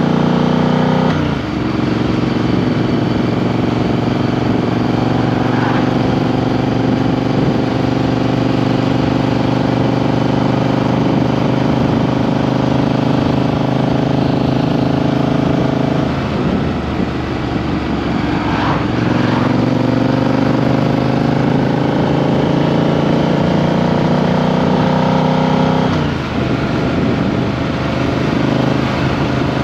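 Triumph Street Twin 900's parallel-twin engine and exhaust running under way, picked up close from under the seat. The engine note drops sharply and climbs again three times: about a second in, a little past halfway, and near the end.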